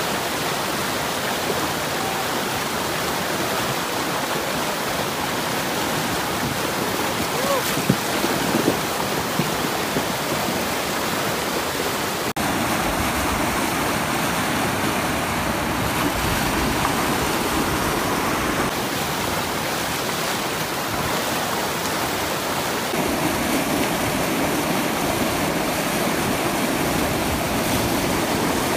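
Whitewater rapids rushing steadily over and between river boulders, a constant loud wash of water.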